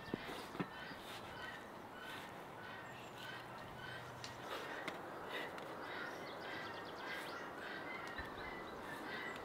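Birds chirping over and over in the background, short repeated notes with no break. Two sharp clicks sound near the start as the knife scores a raw duck on the steel tray.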